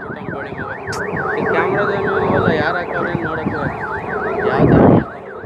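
An electronic siren wailing rapidly up and down, about four sweeps a second. A sharp click about a second in and a loud rush of noise near the end.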